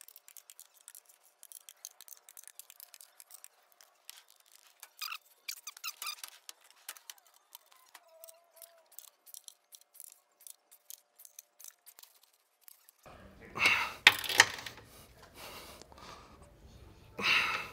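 Hand wrench turning the torque-to-yield bolts of the front reinforcement plate: faint, scattered clicks, then louder metallic clicks and clatter in the last few seconds.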